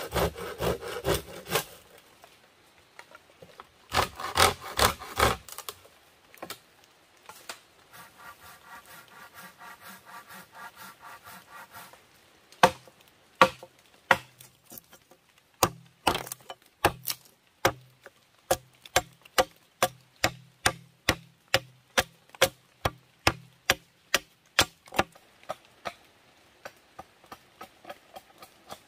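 Hand saw cutting through bamboo stakes in two short bursts of quick back-and-forth strokes. Then comes a long run of sharp wooden knocks, about one to two a second, some with a dull thud, growing fainter near the end.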